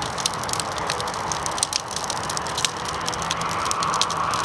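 Large wood bonfire burning: a steady rush of flame with frequent sharp, irregular crackles and pops from the burning wood.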